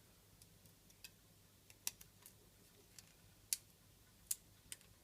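Faint, irregular sharp clicks, about half a dozen, as small bits of whole spice (chopped nutmeg, cardamom) drop and tap onto a roasting tray.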